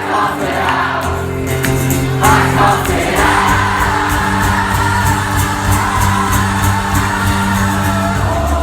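Live rock band playing a song with singing over guitars, bass and drums, loud and continuous.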